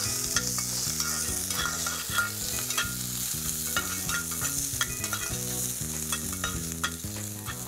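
Chicken pieces and shallots sizzling in rendered chicken fat in a clay pot, stirred with a metal ladle that clicks and scrapes against the pot.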